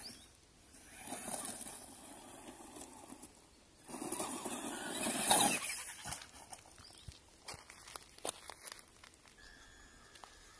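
Traxxas Rustler RC truck with a brushed electric motor, run in short throttle bursts on dirt and gravel: motor whine and spinning tyres, loudest about five seconds in. It then goes quieter, with scattered light clicks and knocks as the truck scrabbles and tumbles on the bank.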